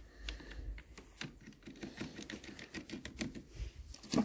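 Faint, irregular small clicks and rattles from hand work on a Demon CS-2500 top-handle chainsaw's plastic side cover, as the bar-cover nuts are screwed on by hand.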